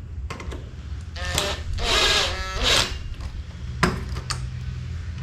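Cordless drill-driver driving lockset screws into a door in three short bursts, its motor pitch bending as it loads up, followed by a sharp click about four seconds in.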